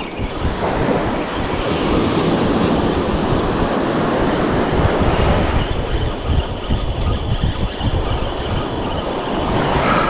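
Spinning reel being cranked hard against a hooked, running fish, its gears and line giving a steady, dense whirr close up. Wind buffets the microphone and surf washes underneath.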